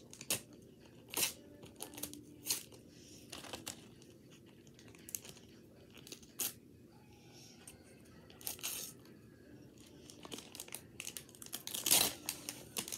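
A football trading-card pack's wrapper crinkling and tearing as it is opened by hand, in scattered short crackles, the loudest near the end.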